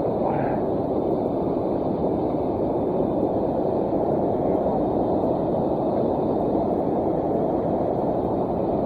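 Steady rush of the Boise River's flowing water, an even noise without breaks.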